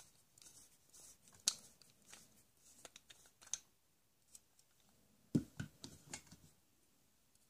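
Faint plastic clicks and scrapes from a Black & Decker toy screwdriver turning a plastic bolt out of a plastic toy plank. A quick run of louder clicks comes about two-thirds of the way through.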